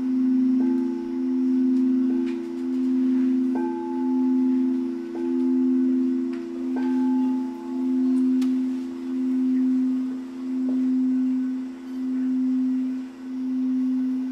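Crystal singing bowls being sung with a mallet: two steady low tones held with a slow, even wavering in loudness about once a second. Light strikes every second or two add a brief higher ring.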